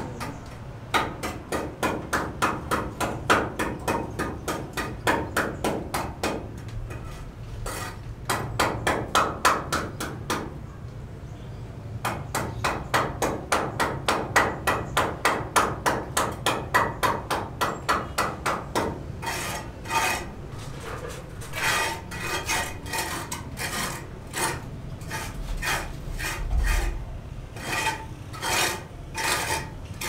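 Hand-tool work on a brick window opening: rapid, even tapping strokes, about four a second, with a short pause about a third of the way in. From about two-thirds of the way through, the tapping gives way to slower rasping, scraping strokes.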